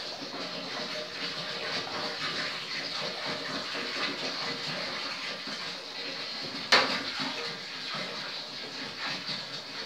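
Water poured in a steady stream into a nearly empty glass aquarium, splashing into the shallow water on its floor. A single sharp knock about two-thirds of the way through.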